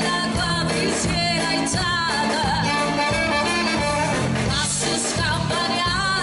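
Live band playing a lively Neapolitan song with singing, over a steady beat.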